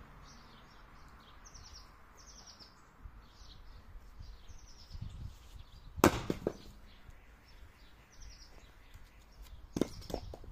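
An axe strike splits a log on a chopping block about six seconds in: one sharp, loud crack, with a couple of smaller knocks right after as the split pieces fall. A lighter knock near the end as the axe is sunk into the chopping block, and birds chirping with short descending chirps throughout.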